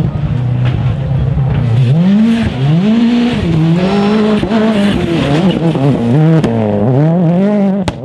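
A World Rally Car's turbocharged 1.6-litre four-cylinder engine revving hard through gear changes, its pitch climbing and falling several times. A sharp crack comes near the end.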